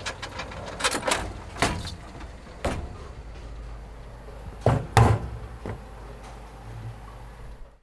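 A series of sharp knocks and thumps over a steady low hum, the loudest two close together about five seconds in.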